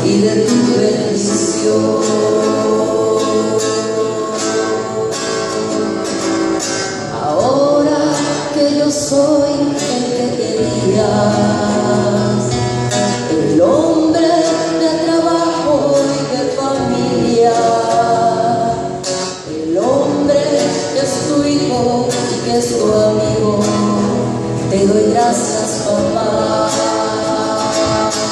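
A song: a solo voice singing long, gliding notes over instrumental accompaniment.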